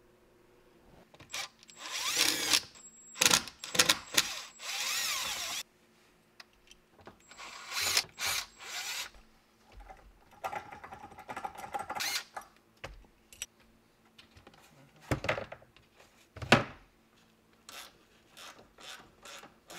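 Tool work on the rear air-spring top mount nuts: several bursts of a small power tool whirring with a wavering pitch, along with rustling and clatter. Two sharp knocks come about three-quarters of the way through, and the second is the loudest sound.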